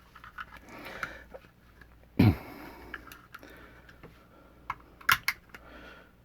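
Small clicks and taps of a drift punch and a pistol's steel frame being handled at the bench, with one louder knock about two seconds in and a few sharp clicks later on.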